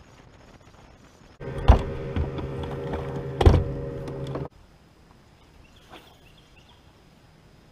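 Bow-mounted electric trolling motor humming steadily for about three seconds, then cutting off abruptly, with two loud thumps on the boat about two seconds apart.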